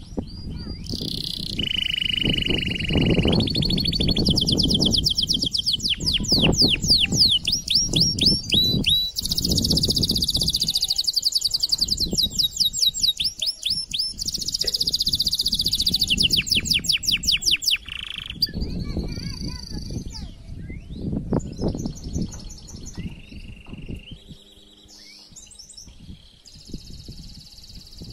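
White male canary singing a long song of rapid repeated trills and held whistled notes, with several trill types in turn. It is loud for most of the song, then breaks into softer, scattered phrases near the end.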